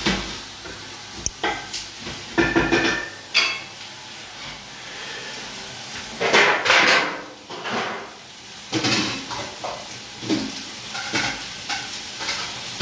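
Sausages, onion and red peppers sizzling as they fry in a steel pot, with a wooden spatula stirring and scraping and pot and utensils knocking and clattering several times; the loudest scraping comes about halfway through.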